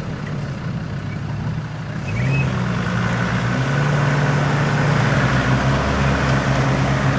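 Engine of a lifted Jeep Cherokee XJ running as the vehicle drives down a steep dirt slope; about two seconds in the engine note grows louder and then holds steady.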